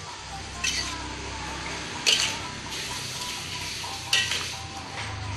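A spatula scraping and knocking against a wok as a tomato-and-chili sambal is stirred, four sharp strokes a second or two apart, over the steady sizzle of the mixture frying.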